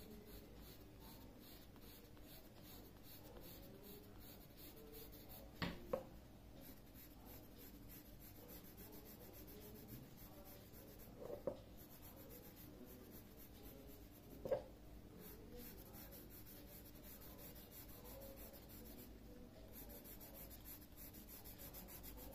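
Faint scratching of a graphite pencil shading on paper, steady with the back-and-forth strokes, broken by a few soft clicks.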